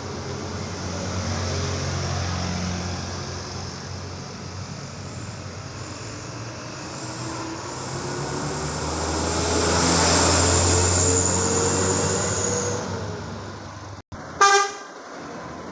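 Heavy trucks running past on a wet road: engine hum and the hiss of tyres on the rain-soaked surface swell as one passes and fade away. Near the end a vehicle horn gives one short, loud toot.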